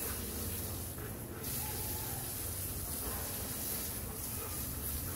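Garden hose spraying a jet of water onto wet paving tiles, a steady hiss.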